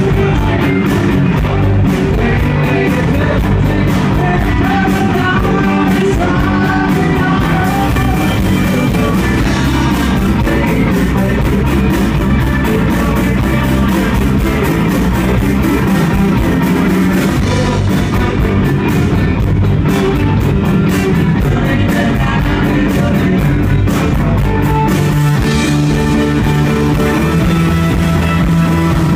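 Live rock band playing electric guitars over a steady beat, with a man singing lead at the microphone.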